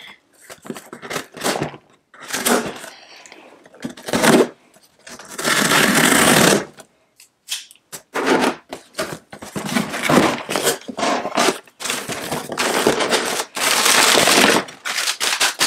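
A taped cardboard box being cut open with scissors and unpacked: tape slit and torn, cardboard flaps pulled open, then crumpled brown packing paper rustling as it is pulled out near the end. Irregular loud rustles and sharp clicks with short pauses between them.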